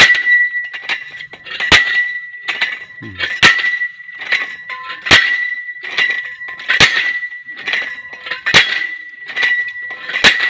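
A heavy drop weight lifted by hand and slammed down onto the top of a galvanized steel pipe, driving the pipe into the ground for a Jetmatic hand-pump well. It lands with a sharp metallic clang about every 1.7 seconds, seven blows in all, and the pipe keeps up a steady high ring between them.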